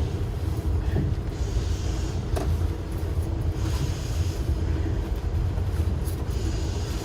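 Passenger train running, heard from inside a sleeper compartment: a steady low rumble, with a hiss that swells about every two seconds and a couple of light knocks.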